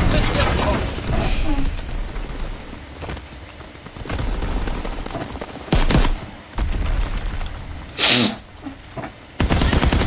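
Video game gunfire with bursts of shots and a few loud bangs, mixed with a little voice from the game.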